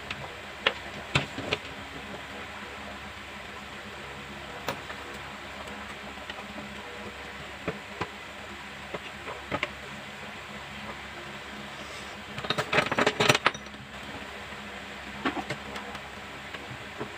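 Scattered light clicks and clinks of small hard objects being handled, with a quick flurry of them about three-quarters of the way through, over a steady background hiss and low hum.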